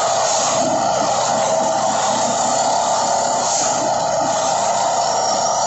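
Plasser & Theurer 09-32 CSM track tamping machine at work: a loud, steady drone from its engine and hydraulics, with a short hiss that comes back about every three seconds.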